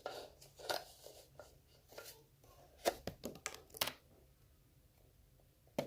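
Hands handling a plastic Nerf blaster and its small ammunition: a run of irregular clicks and rustles, with a few sharper clicks about three to four seconds in, then quiet.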